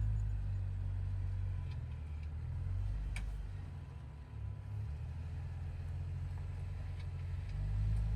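Off-road 4x4's engine running at low revs while crawling, a steady low rumble with a few faint clicks.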